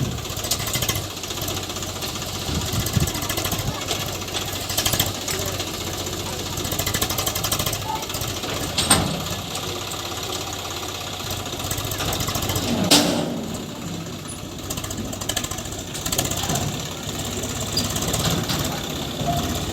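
Diesel engines of a backhoe loader and tractor running steadily, with two sharp knocks, about 9 and 13 seconds in.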